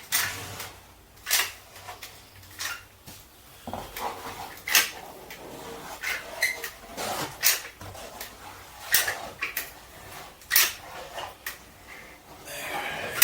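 Manual caulking gun being pumped by hand to push adhesive out of a tube, its trigger ratchet clicking sharply about once every second or so, with handling noise in between.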